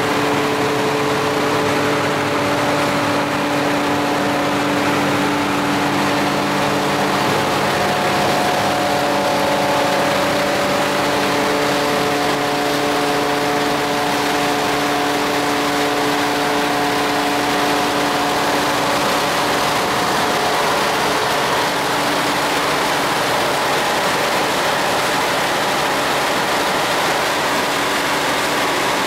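TLD ground support cart running steadily, supplying the parked aircraft through a yellow hose: a steady machine and fan hum with several droning tones over a rushing noise.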